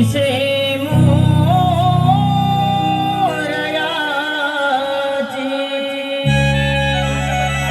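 A male singer sings a long, ornamented melody over sustained instrumental chords in a Marathi naman folk song. The accompaniment drops away in the middle and comes back strongly near the end.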